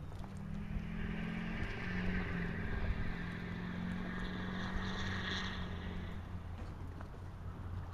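An engine running steadily as it passes by, its hum and a hiss above it building and then fading out about six seconds in, over a constant low rumble.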